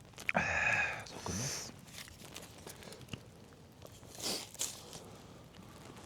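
A short voiced murmur in the first second or so, then faint eating noises: quiet chewing and mouth sounds while potatoes are eaten.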